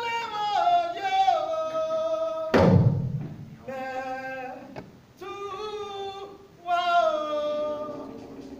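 A solo voice singing long, sliding held notes in short phrases with brief breaks between them, unaccompanied. One loud, low thump about two and a half seconds in.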